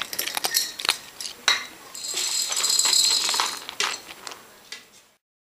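A cat eating dry kibble from a plastic bowl: quick crunching and kibble clicking and rattling against the bowl, with a denser stretch of rattling in the middle. The sound cuts off suddenly near the end.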